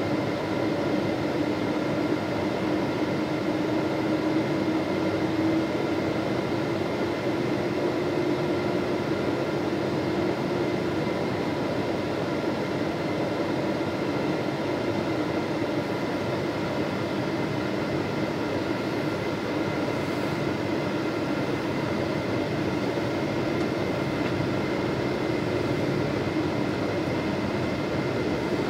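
Jet airliner cabin noise heard from a window seat on approach: the steady rush of engines and airflow, with a low hum that steps up slightly in pitch about six seconds in.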